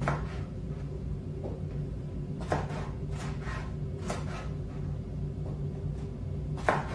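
Large kitchen knife slicing an eggplant on a plastic cutting board: a few sparse, irregular knocks of the blade against the board, over a steady low hum.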